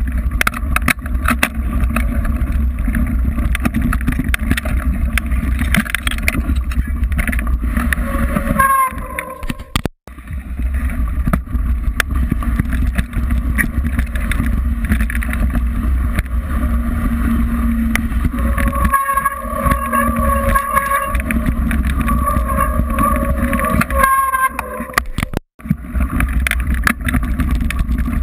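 Onboard audio of a mountain bike on a rough gravel trail: a steady rumble of wind on the microphone and tyres on the gravel, with constant clicking and rattling from the bike. A pitched squeal comes in briefly, then again for several seconds in the second half, and the sound cuts out abruptly twice.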